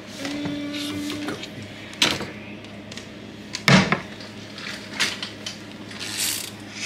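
A few knocks and clicks from handling at a salon shampoo bowl, the loudest a thump about four seconds in, over a steady low hum. A brief steady tone sounds near the start.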